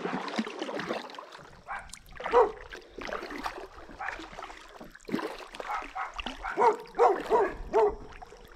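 A dog barking several times in short calls, with a quick run of barks near the end.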